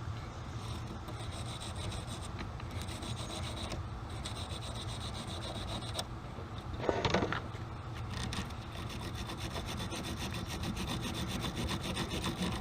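Wire bristles of a battery terminal brush scrubbing a corroded lead battery terminal in quick back-and-forth strokes, clearing off the blue corrosion. A brief louder sound comes about seven seconds in.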